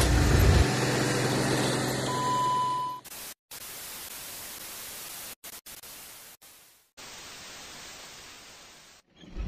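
Background music that gives way about three seconds in to a steady test-tone beep, then analog TV static hiss. The hiss cuts out briefly several times before ending. It is a stock bars-and-static transition effect.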